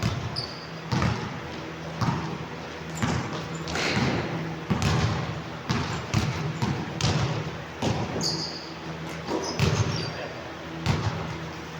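Basketball game on an indoor court: the ball bouncing and thudding at irregular intervals, with a few brief high-pitched sneaker squeaks.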